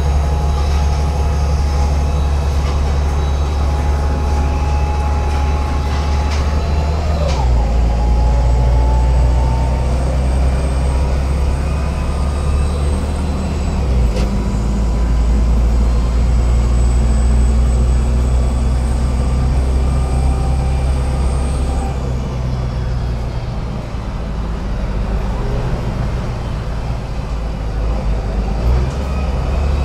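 LAZ A183D1 city bus under way, its diesel engine giving a steady low drone that steps in pitch twice, about seven and fourteen seconds in. A thin high whine climbs in pitch near the start, holds, and fades away after about twenty-two seconds as the noise eases off.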